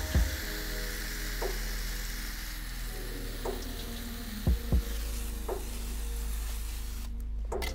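Hand-pump garden pressure sprayer misting water onto potting soil: a steady spray hiss that cuts off suddenly near the end.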